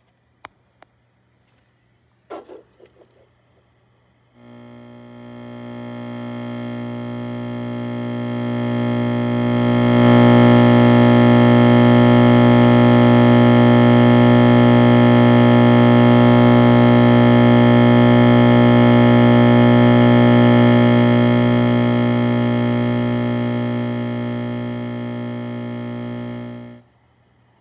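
Microwave oven running: a loud, steady buzzing hum that swells over the first few seconds, holds, then eases off before cutting out suddenly near the end. A few sharp clicks come before it starts.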